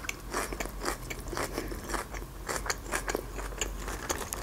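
Close-miked chewing of a mouthful of McDonald's Caesar salad: a steady run of small crunchy, wet clicks.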